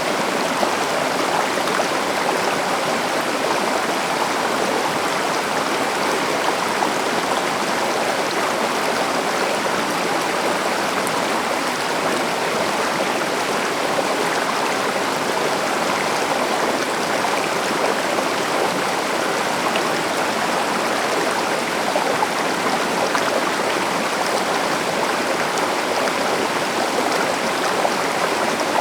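A river flowing steadily, an even rushing of water with no breaks.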